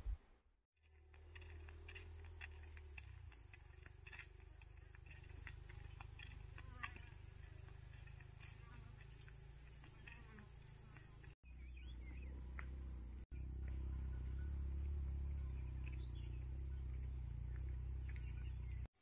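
Insects trilling steadily in a high, thin tone over a low rumble, with scattered faint clicks. The sound cuts out briefly twice, and the rumble is louder after the second cut.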